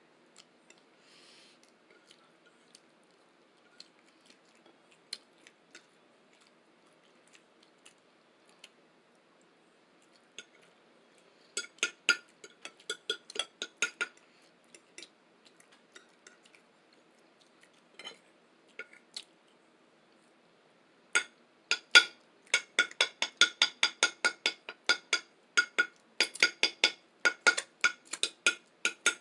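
Tapping on a ceramic plate: a few faint clicks, then a quick run of ringing taps, and after a pause a steady fast tapping at about four taps a second, each tap leaving a short ring.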